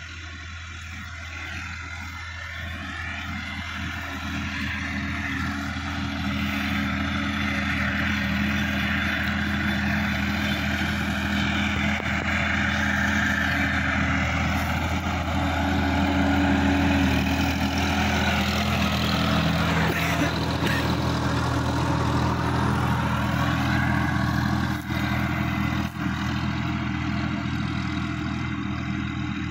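Sonalika DI-50 RX tractor's diesel engine running steadily while pulling a tillage implement through the soil, growing louder as it approaches over the first several seconds and easing off slightly near the end as it moves away.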